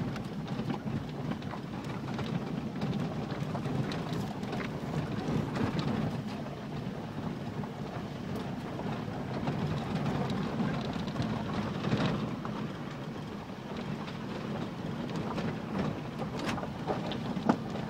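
Ford Endeavour SUV heard from inside the cabin while driving over a rough dirt forest track: a steady low rumble of engine and tyres on the uneven ground, with a few sharp knocks and rattles as it jolts over bumps.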